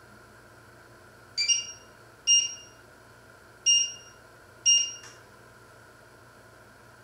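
Touch controls of a glass-ceramic hob beeping as they are pressed: four short electronic beeps at irregular intervals of about a second, the first a quick double.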